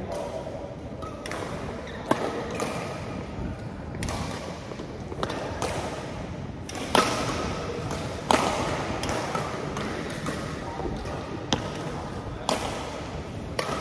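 Badminton rackets striking a shuttlecock during a doubles rally: a string of sharp smacks a second or more apart, the two loudest near the middle, each with a short echo.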